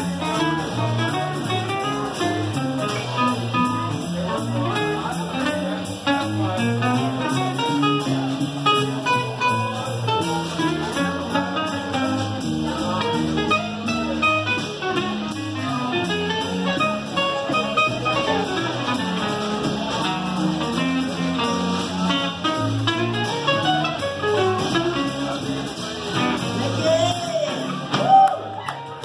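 Live blues band playing: guitar, upright bass and drums, with a melody line over them. The music cuts off abruptly right at the end.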